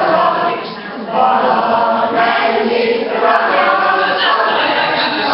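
A small group of women singing a song together, with a short break between phrases a little under a second in.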